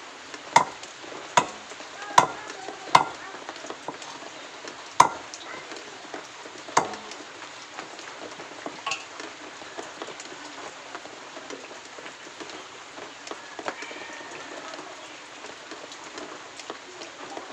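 Large knife chopping raw chicken pieces on a wooden block: six sharp chops, about one every 0.8 s at first and then farther apart, ending about seven seconds in. After that there are only a few faint knocks over a steady hiss.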